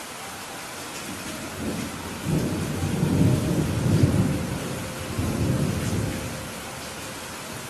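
Steady heavy rain with a low rumble of thunder that builds about two seconds in, peaks, swells once more and dies away near the end.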